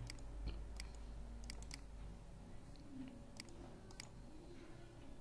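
Computer mouse clicking: several short, faint clicks scattered irregularly, a few in quick pairs.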